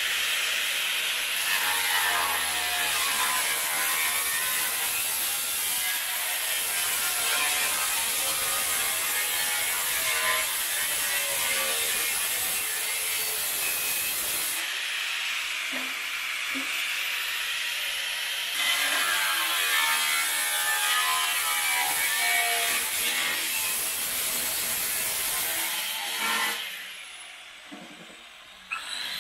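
Angle grinder cutting into the steel shell of an exhaust rear silencer, its whine wavering as the disc bites. It cuts for about fourteen seconds, pauses briefly with a few knocks, cuts again for about seven seconds, then winds down near the end.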